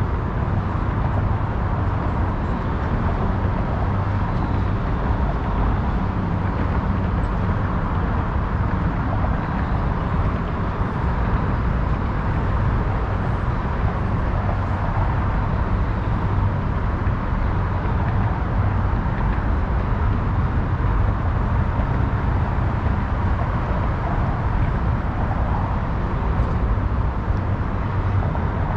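Steady urban traffic noise: a constant wash of passing cars with a strong low rumble and no distinct events standing out.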